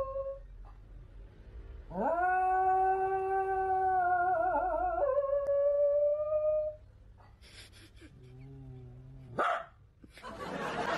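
A dog howling. A long howl about two seconds in rises at the start, holds steady, wavers, then drops lower and trails off. Near the end comes a short, much lower moan.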